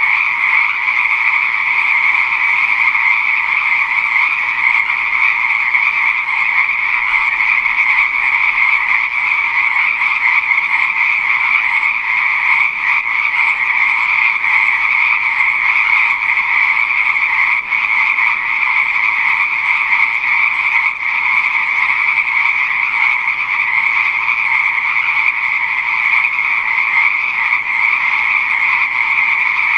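Dense chorus of many frogs calling together, a continuous high-pitched din without pauses.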